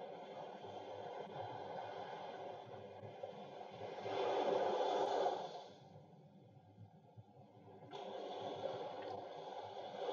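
Ocean waves washing in and out, a soft rushing that swells to a peak about halfway through, falls away, then surges back in with a new wave near the end.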